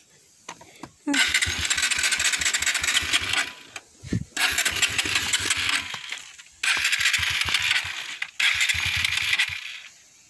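Honda XR150L's single-cylinder engine being cranked on its electric starter in four bursts of about two seconds each, with short pauses between, and it never catches and runs. The bike has sat unused for two weeks, and the owner puts the failure to start down to the fuel tap being on reserve and the tank running low.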